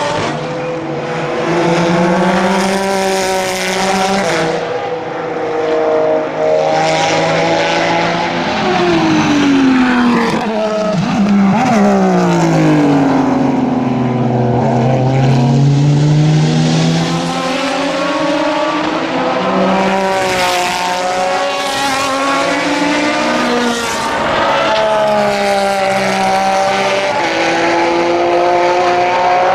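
Porsche GT3 RSR racing cars' flat-six engines running hard through corners, pitch climbing with each gear and dropping on lifts and downshifts, with one long fall and climb about ten seconds in.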